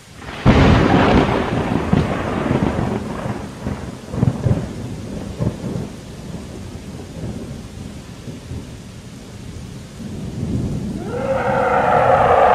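A thunderclap about half a second in, rolling on in uneven rumbles that die down over several seconds, over steady rain. Near the end a loud drone with several pitches at once swells in.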